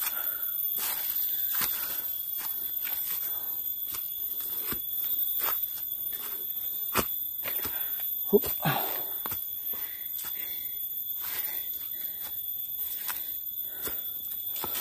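Footsteps crunching over dry leaves and cut bamboo debris on a forest path, over a steady, shrill insect drone. A brief louder knock comes about eight seconds in.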